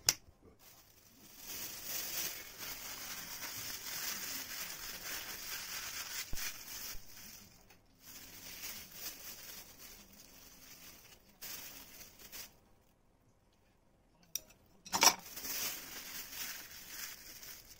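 Thin plastic bag crinkling and rustling as hands squeeze and shake quail eggs in dye liquid inside it, in long stretches with a short pause, and one sharper, louder rustle about fifteen seconds in.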